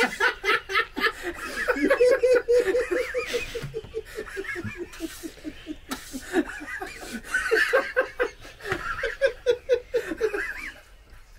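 Human laughter: a long fit of quick repeated bursts that dies away near the end.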